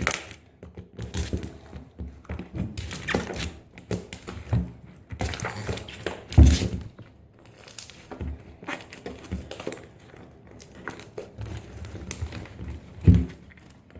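Slime being worked by hand on a tabletop: irregular soft handling noises and crinkles, with two louder thumps, one midway and one near the end.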